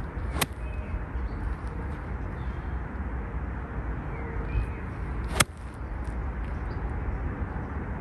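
Golf iron striking the ball off fairway turf: one sharp crack about five and a half seconds in, the loudest sound. It follows a lighter click about half a second in from a practice swing clipping the grass. Under both, a steady low rumble of wind on the microphone and a few faint bird chirps.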